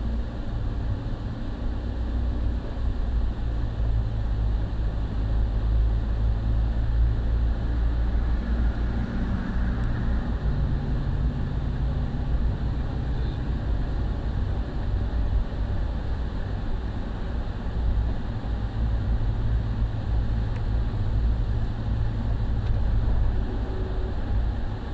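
Car cabin at highway speed: a steady low rumble of engine and tyre road noise, with an engine hum that steps down in pitch about ten seconds in.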